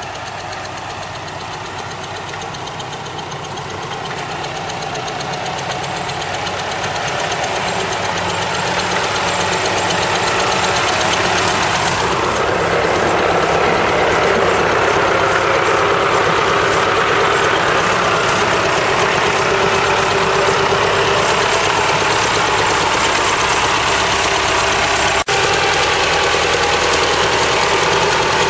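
Massey Ferguson 285 tractor's diesel engine running steadily while it pulls a tow-behind earth scraper through dirt, growing louder over the first dozen seconds.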